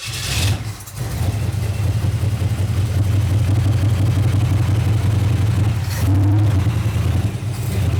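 1959 Pontiac Catalina's 389 V8 catching about a second in and then running steadily, loud, with a brief swell near the end. This is its first run after decades of sitting, still flooded with fuel.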